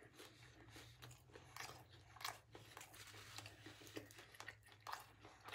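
Faint close-up chewing with the mouth closed: soft, irregular crunches of a crispy, cheese-crusted mulita.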